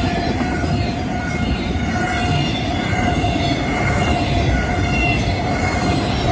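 BNSF double-stack intermodal freight cars rolling past: a steady rumble and rattle of steel wheels on rail, with thin squealing tones at several pitches over it.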